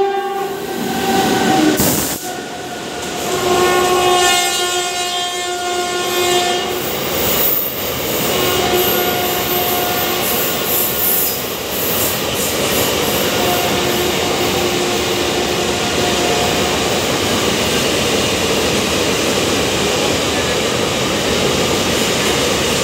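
Indian Railways WAG7 electric freight locomotive passing at speed, its horn sounding in several long blasts, the later ones fainter as it moves away. Under and after the horn comes the steady running noise and clatter of the container wagons' wheels on the rails.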